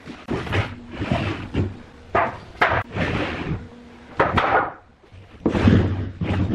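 Irregular wooden knocks and short scraping strokes, about a dozen in quick succession, from wood being handled and worked by hand.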